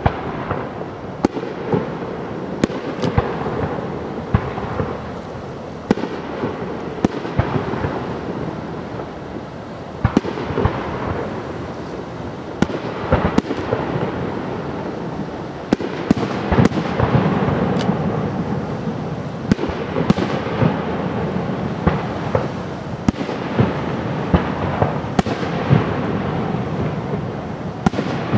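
Aerial fireworks display: shell bursts bang every second or so over a continuous rumble, getting denser and louder about halfway through.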